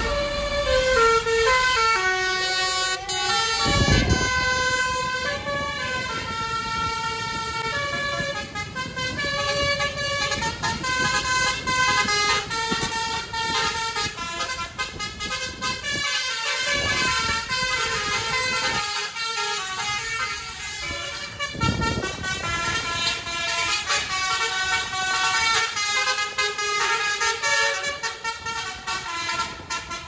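Telolet "basuri" horn of the Eka Persada "Ken Arok" bus playing a melody of held notes that step up and down, sounding on and on with short breaks. A brief rumble, such as a passing vehicle, comes in twice, about four seconds in and again after twenty seconds.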